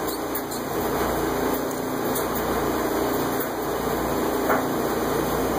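Steady machine noise: a continuous hum and hiss, with a few faint light ticks over it.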